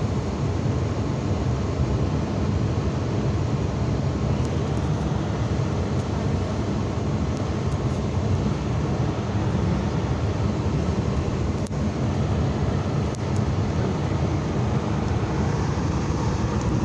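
Steady road and engine noise of a car being driven, heard from inside its cabin.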